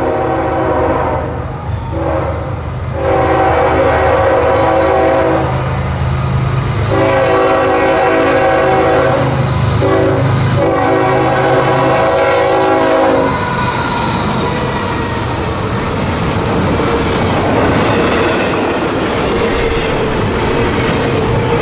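Diesel freight locomotive's air horn sounding a series of blasts for the grade crossing, the chord breaking between blasts, the last three long, ending about 13 seconds in. The double-stack container train then rolls through the crossing, wheels clacking over the rail joints.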